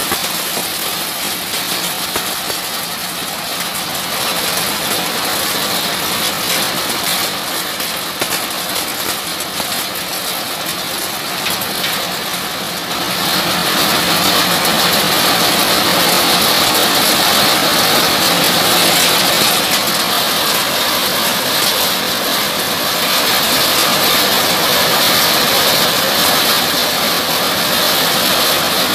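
Diesel-driven organic fertilizer grinding mill running steadily, a loud, dense mechanical din of engine and grinder together. It gets louder about halfway through.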